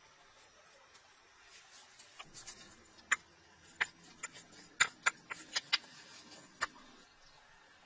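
About ten sharp, irregular clicks and taps over a faint rustle, starting a couple of seconds in and stopping shortly before the end.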